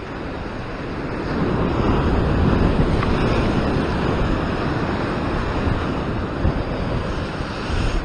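Ocean waves breaking against a rock ledge and washing over it, the surge swelling about a second and a half in and then hissing on. Wind buffets the microphone, with a few sharp gusts near the end.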